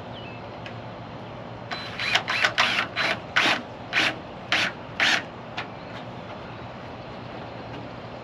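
Self-tapping screw being driven through a metal downspout strap: a run of about eight short rasping bursts, about two a second, starting about two seconds in and stopping a little past the middle.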